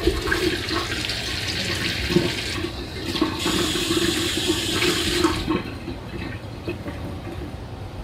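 Kitchen faucet running into a sink, water splashing over hands and the basin, with a steady tone under the rush. The water starts at once and is shut off suddenly about five seconds in, leaving only faint handling sounds.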